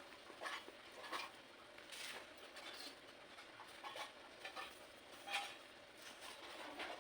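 Pink cornstarch blocks being crushed, giving soft crunches and crumbling at an irregular pace of about one a second, the sharpest a little past halfway.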